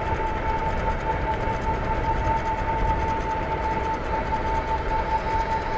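Electric bike motor whining at a steady, unchanging pitch while riding at constant speed, over low wind and road rumble.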